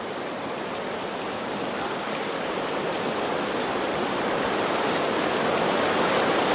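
River rapids rushing, a steady hiss of churning whitewater that slowly grows louder.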